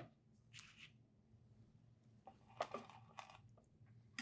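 Mostly near silence with a faint low hum, broken by a few brief, faint rustles and scrapes of plastic plant pots and a clear plastic saucer being handled on a tabletop.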